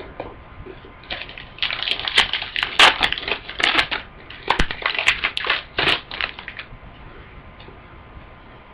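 Foil wrapper of a trading card pack crinkling and tearing open, in irregular crackling bursts for a few seconds that die down near the end.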